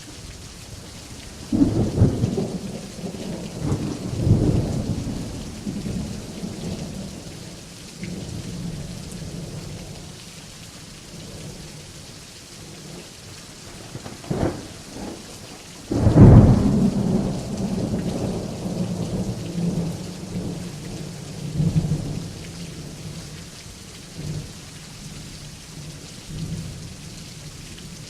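Steady rain with thunder: rumbles roll in near the start, and a loud thunderclap about halfway through is followed by several seconds of rolling rumble.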